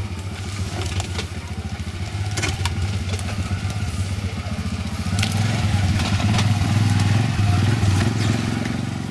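ATV (four-wheeler) engine running at low speed under load, crawling over a rough, steep trail with a heavy load of moose meat. Its revs rise and fall and it gets louder from about five seconds in. Scattered sharp knocks and snaps come through over the engine.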